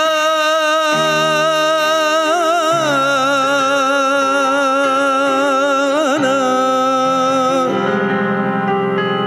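Male Arabic singer holding a long final note with wide vibrato over sustained keyboard chords. The note steps down in pitch about three seconds in, and the voice stops near the end, leaving the keyboard playing on.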